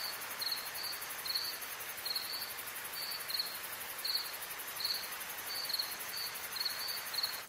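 Crickets chirping: short chirps of one pitch, one or two a second, over a steady hiss of background noise.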